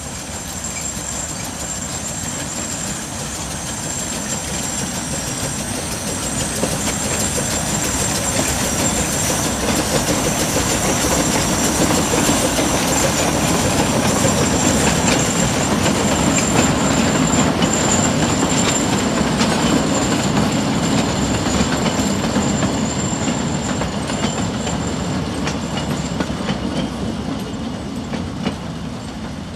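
A small narrow-gauge steam locomotive and its coaches pass by, the sound growing louder as the train approaches, loudest about halfway through, then easing as the coaches roll past with clattering wheels. A thin, high, steady tone runs above it and stops a few seconds before the end.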